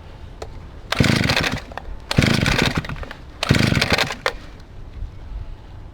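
Stihl 08 S two-stroke chainsaw being pull-started: three short bursts about a second apart as the starter is pulled and the engine fires briefly without yet running on. It is a first start after some 15 years of standing unused.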